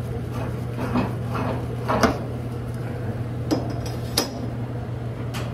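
Fryer drain extension pipe being unscrewed from the drain valve and lifted off: several light clicks and knocks, the sharpest about two seconds in, over a steady low hum.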